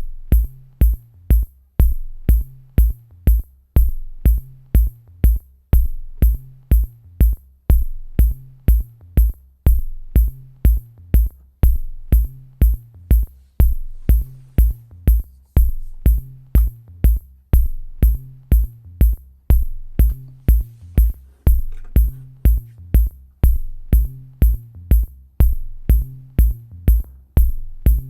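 Electronic background music with a steady drum-machine beat and a repeating bass line.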